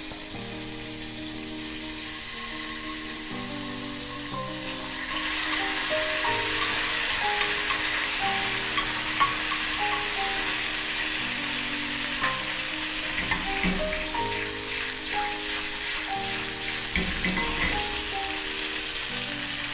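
Butter and a little jerk sauce sizzling as the butter melts in a pan. The sizzle grows much louder about five seconds in and stays steady. Background music plays throughout.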